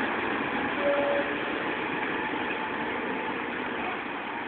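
Railway track tamper running, a steady noisy rumble that slowly grows fainter.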